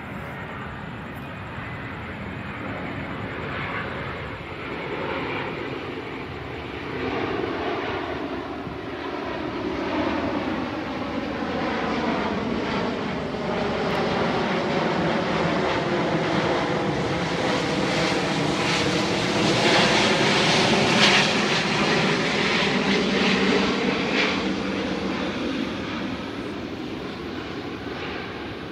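Airbus A350-900 airliner on approach to land, landing gear down, passing overhead: the steady noise of its Rolls-Royce Trent XWB turbofans swells to its loudest about two-thirds of the way through, then fades as it moves away.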